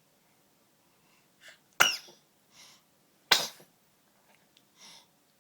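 A young baby, about 80 days old, sneezing twice, about a second and a half apart, with softer breaths between the sneezes.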